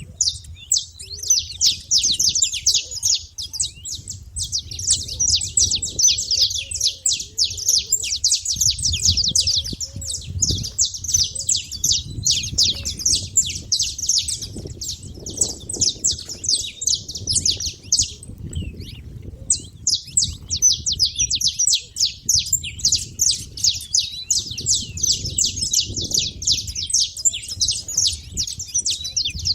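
Saffron finch chatter: a dense, continuous stream of rapid high chirps, with a brief pause about two-thirds of the way through.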